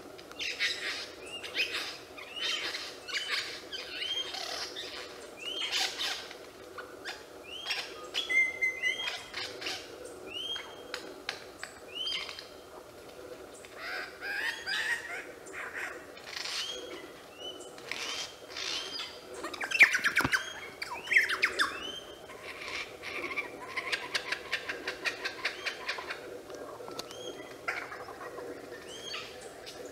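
Superb lyrebird singing a long medley of mimicked forest-bird calls: many short sweeping whistles repeated in quick succession, a held whistle, a loud harsh call about two-thirds of the way through, and a run of rapid evenly spaced notes near the end.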